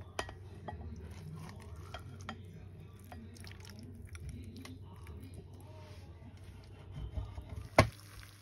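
Hands setting a raw chicken onto sliced potatoes in a glass baking dish and pressing it into place, with light clicks and taps against the glass over a low steady hum. One sharp knock, the loudest sound, comes near the end.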